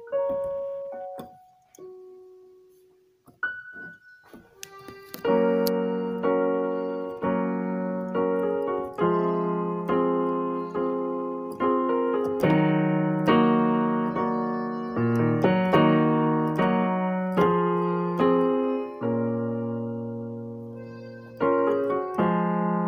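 Background piano music: a few sparse single notes, then steady repeated chords from about five seconds in.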